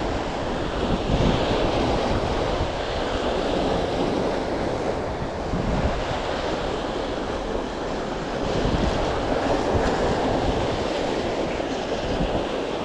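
Sea waves washing against the rocks of a breakwater, rising and falling in swells, with wind buffeting the microphone.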